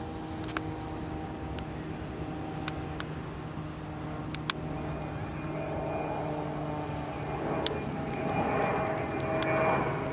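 A wood campfire crackling with scattered sharp pops, over a steady engine drone that grows louder in the second half.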